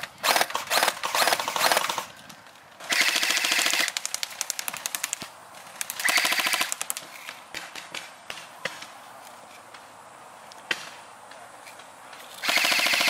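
Airsoft rifles firing full-auto, a fast rattle of shots in four bursts of about one to two seconds each, with scattered single shots in the quieter stretches between.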